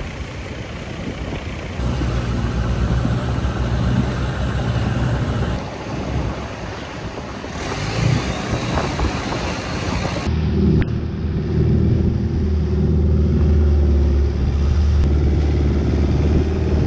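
Long-tail boat's engine running at a steady speed while under way, with water and wind noise; about ten seconds in the engine's drone becomes louder and plainer.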